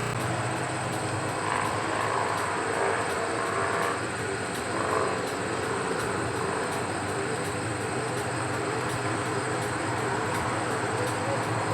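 Steady mechanical hum of small motors holding several even tones, typical of a multirotor drone's motors and propellers.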